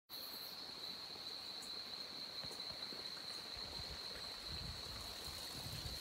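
Insects calling in one continuous, steady high-pitched drone, starting suddenly. A low rumble joins a little past halfway.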